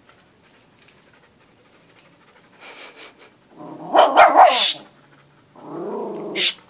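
Dogs playing: after a quiet start, a loud run of barking and growling about four seconds in, then a shorter growl ending in a sharp burst near the end.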